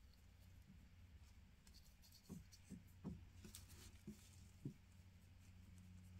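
Near silence: a low steady hum of room tone, with a handful of faint soft taps in the middle.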